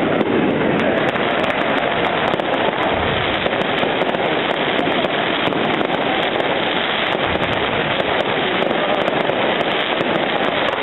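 Fireworks display going off overhead: a continuous, dense barrage of bursts and crackling pops with no pauses.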